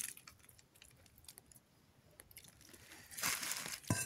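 Water sprinkled by hand from a steel bowl onto spiced crab pieces on a leaf plate: faint scattered drips and small ticks, then a louder rustling hiss about three seconds in, with a knock near the end.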